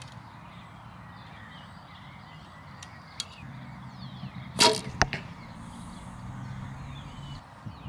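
An arrow shot from a recurve bow strikes the target with a sharp thud about halfway through, followed by a lighter knock. A low steady hum runs underneath.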